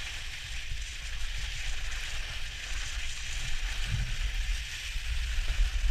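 Skis sliding over packed snow with a steady hiss, and wind rumbling unevenly on the camera's microphone as it moves downhill.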